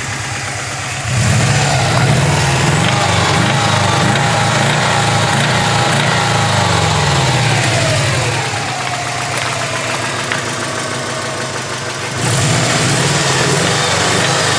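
Subaru WRX EJ205 turbocharged flat-four engine running and being revved, with a metallic noise from a spun bearing, a failure caused by low oil level. The revs rise about a second in and hold, fall away to a lower speed around the middle, then rise again near the end.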